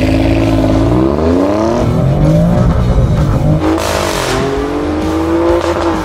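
Alfa Romeo Stelvio Quadrifoglio's twin-turbo V6 accelerating hard from a launch. Its note climbs in pitch and drops back at upshifts about two and four seconds in, with a brief crackle at the second shift.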